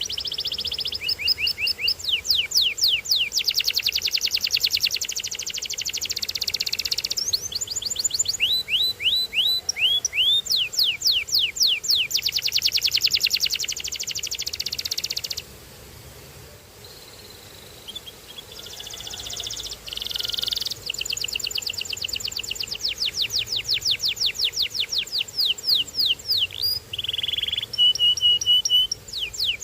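Canary singing in long, fast trills of rapidly repeated falling notes, with a few steadier rolling passages. It pauses for a couple of seconds about halfway through, then resumes.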